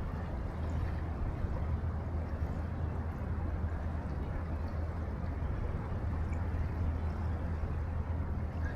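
Riverside ambience: a steady low drone under an even wash of wind and water.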